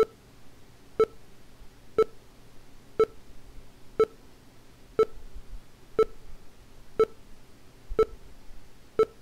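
NVDA screen reader's installer progress beeps: about ten short, identical beeps, evenly spaced at one a second, marking that the installation is still under way.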